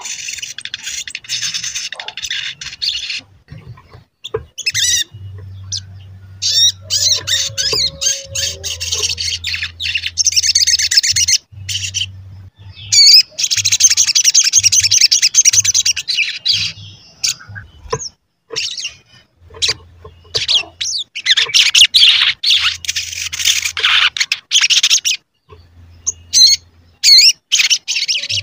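Olive-backed sunbird singing: rapid, high-pitched 'cuit cuit' twittering in runs of a second or more, broken by short pauses.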